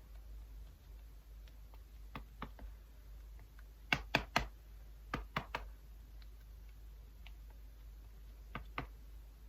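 Light, sharp clicks and taps in small clusters of two or three, with quiet room tone between them.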